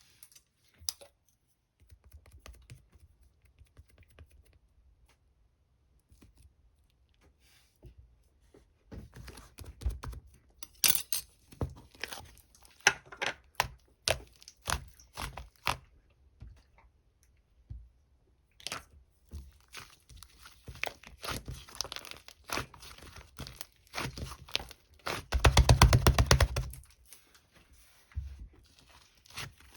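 Hands pressing, stretching and squishing a fluffy white slime, giving sticky crackles, pops and tearing sounds in uneven clusters, with a long dense run of crackling near the end.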